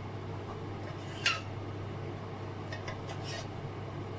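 A kitchen utensil against a dish while cornstarch is measured out for coating chicken wings: one sharp clink about a second in, then a few soft scrapes near the end, over a steady low hum.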